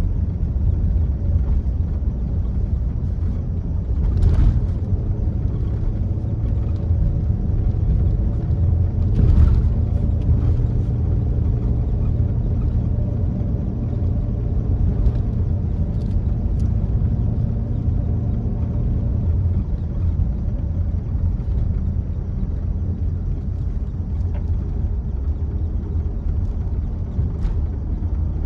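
A car driving on a snowy road: a steady low rumble of tyre and engine noise with a faint engine hum, and two brief knocks, about four and nine seconds in.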